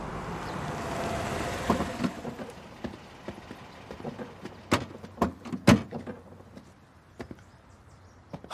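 A car pulls up, then its doors are shut. The door slams are a few sharp thuds around the middle, the loudest about two-thirds of the way through.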